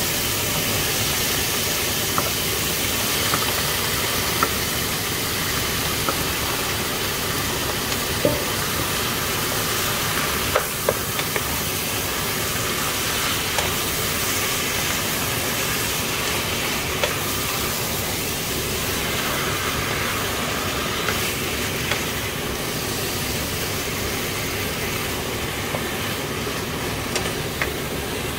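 Raw chicken pieces sizzling in hot oil in a nonstick frying pan, with a steady hiss. A wooden spatula stirs them, knocking lightly against the pan now and then.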